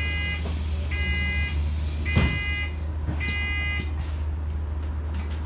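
Bus door warning beeper giving a series of electronic beeps about once a second, stopping about four seconds in, over the steady low hum of an Enviro400H MMC hybrid double-decker bus. A single knock about two seconds in.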